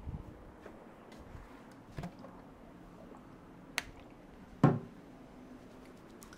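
Hands working a head and neck massage: a few soft pats, a sharp crack a little under four seconds in, then one loud slap-like thump just after.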